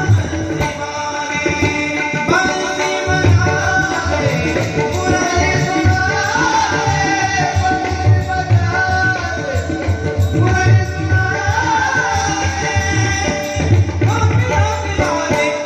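Marathi gaulan bhajan: a gliding sung devotional melody over a steady rhythm from tabla and pakhawaj drums.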